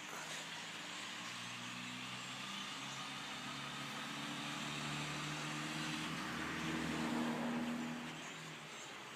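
A large migrating flock of tiny chirping birds passing overhead: a steady, rain-like patter of many small calls. Over it, a vehicle's engine hum swells, loudest about seven seconds in, then fades.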